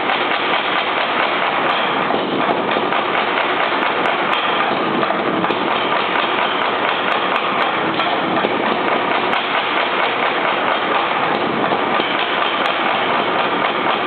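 Little Giant mechanical power hammer running, a loud, steady mechanical din with no break, while steel tapers are forged under it.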